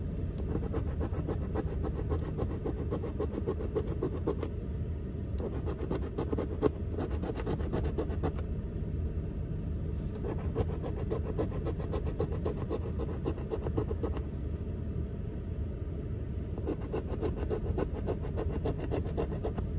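A coin scraping the latex coating off a scratch-off lottery ticket in quick, rapid strokes. The strokes come in several spells with short pauses between them. A steady low rumble runs underneath.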